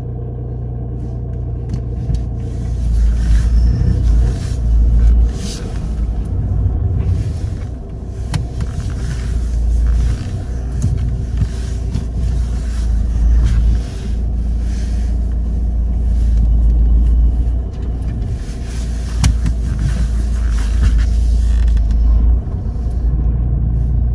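Steady low rumble and hum of road traffic, with irregular light scuffs and taps over it.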